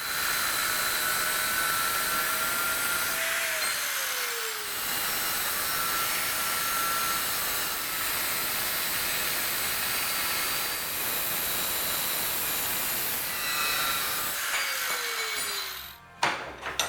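A power cutting tool cutting through solid square steel bar: a steady, loud hiss with a faint whine that sags in pitch about four seconds in and again near the end, stopping abruptly a second before the end.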